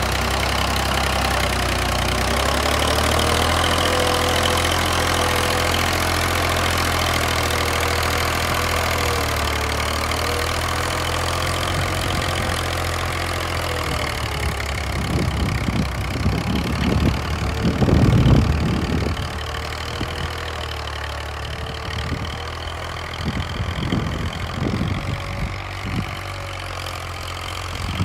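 Massey Ferguson 240's three-cylinder Perkins diesel engine running steadily under load as the tractor pulls an 11-tine cultivator through hard ground, its pitch wavering slightly. From about halfway there are irregular low buffeting rumbles on the microphone, heaviest a little past halfway, and after that the engine grows somewhat quieter.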